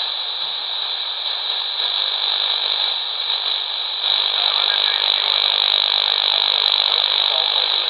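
Shortwave band noise hissing steadily from an AOR AR8000 receiver's speaker, tuned to upper sideband on the 15 m ham band, with no clear voice coming through. The hiss gets slightly louder about four seconds in.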